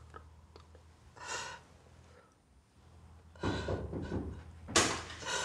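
A woman crying: a gasping breath about a second in, then sobs that grow louder in the last two seconds, with a sharp gasp near the end.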